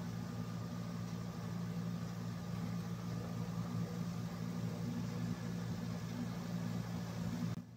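Small battery-powered handheld fan in the shape of Doraemon, its propeller-top blades spinning with a steady motor hum and whir; it cuts off near the end.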